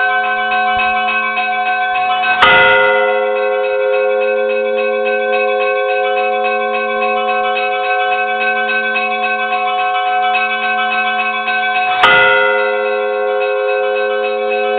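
Church bells ringing: smaller bells are struck quickly and continuously, and a big bell is struck twice, about ten seconds apart, each stroke ringing on and slowly fading.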